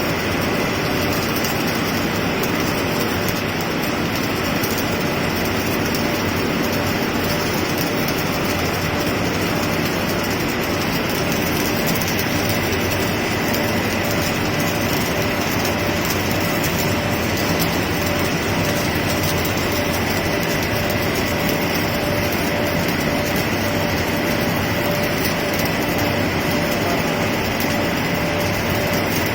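Arc (stick) welding: the electrode's arc crackling and hissing without a break as a weld bead is run, with a faint steady whine in it.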